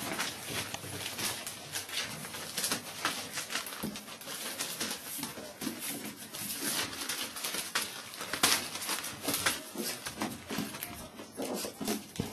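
Whippet puppies crawling over newspaper: continual rustling and crinkling of the paper under their paws, with soft puppy whimpers near the end.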